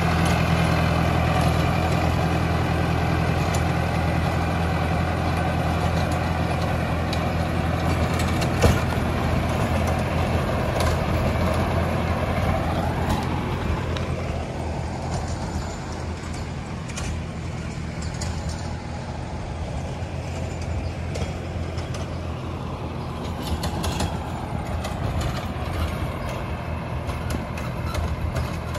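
Mahindra 605S tractor's engine running steadily under load while driving a rotavator through the soil. Its pitch drops once about halfway through, the sound gets a little quieter in the second half, and a single sharp knock stands out about nine seconds in.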